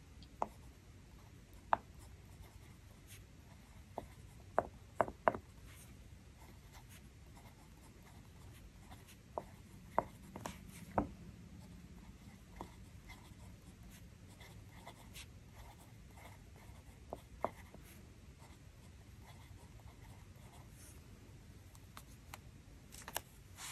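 Fountain pen writing on planner paper: a faint, steady scratch of the nib, broken by a handful of short light ticks and taps.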